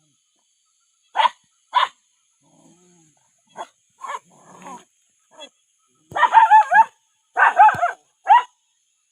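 Dogs barking and yelping: two short barks about a second in, then a run of higher, wavering yelps and whines in the second half.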